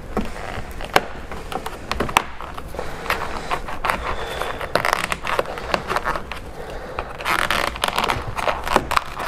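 Plastic pry tool and fingers working the inner mirror cover trim loose on a BMW F10 door frame: scraping and creaking of plastic on plastic, with many sharp clicks as the tight clips resist, and heavier scraping about halfway through and again near the end.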